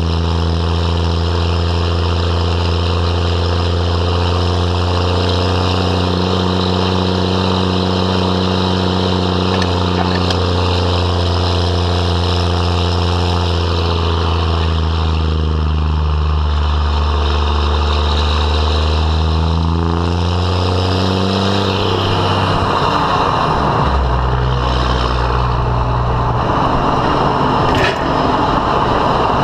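12-valve Cummins 5.9-litre inline-six diesel running through a 4-inch straight pipe under load while towing a tractor uphill, a loud, deep, steady drone. About two-thirds through, the pitch sags and then falls away, and the note changes.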